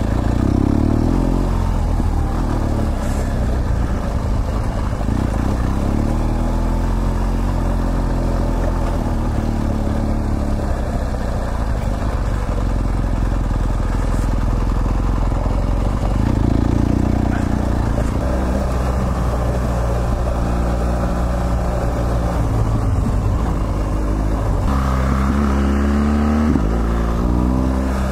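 BMW GS Adventure's boxer-twin engine under way off-road, its note rising and falling several times as the throttle opens and closes.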